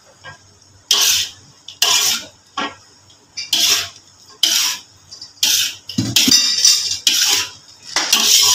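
Metal spatula scraping and clanking against a large wok while stir-frying vegetables and shrimp, in sharp strokes about once a second that begin about a second in.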